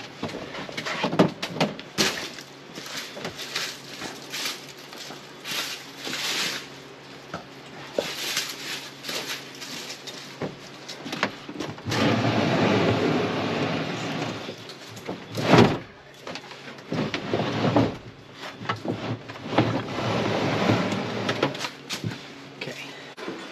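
Wooden pallet carrying a small-block Chevy 350 engine being pushed and dragged across a plastic pickup bed liner: stretches of rough scraping broken by knocks and clunks, with one sharp knock about two-thirds of the way through.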